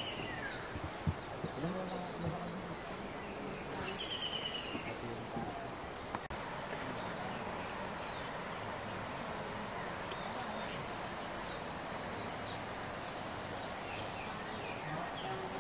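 Steady outdoor ambience of a steady, even hiss among trees, with a short bird trill about four seconds in and faint high chirps scattered throughout. There is a single brief click about six seconds in.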